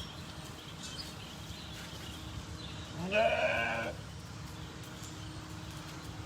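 A sheep bleating once, a single call of under a second about three seconds in, rising in pitch at the start and then held.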